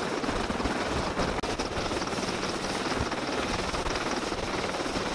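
AH-64 Apache helicopter running on the ground, its rotor and twin turboshaft engines making a steady, loud noise.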